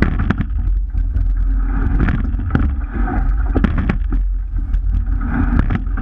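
Rowing shell under way: steady low wind rumble on the microphone and water rushing along the hull, with sharp knocks from the oars turning and catching in their gates with each stroke.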